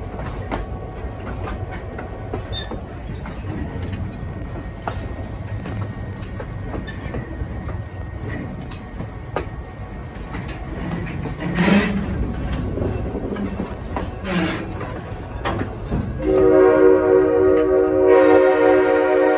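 Train rolling with a steady rumble and irregular clicks of wheels over rail joints, with a louder knock about 12 seconds in. About 16 seconds in, a Nathan K5L five-chime air horn starts a long, steady chord, the loudest sound, still sounding at the end.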